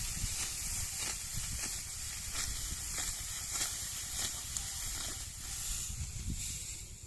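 Dry, ripe wheat stalks rustling and crunching as they are cut by hand, a crisp stroke about every half second to a second over a steady hiss, with a low rumble of wind on the microphone.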